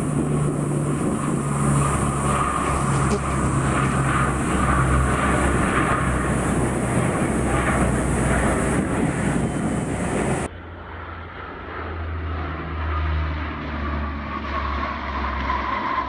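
Four-engine Lockheed L-188 Electra turboprop air tanker flying low, its engines and propellers giving a steady drone. About ten seconds in the sound cuts suddenly to a duller recording of another aircraft's engines droning, with a tone that drifts slightly lower toward the end as it passes.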